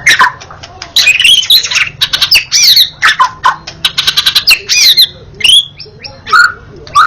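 White-rumped shama singing a loud, varied song: fast rattling trills, sliding whistled notes and harsh chattering calls, phrase after phrase with short pauses between them.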